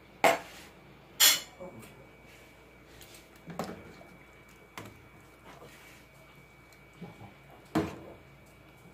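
Metal ladle clinking and knocking against a stainless steel stockpot while chicken is stirred in boiling water. There are two sharp knocks about a second apart near the start, a couple of lighter ones in the middle and another sharp knock near the end.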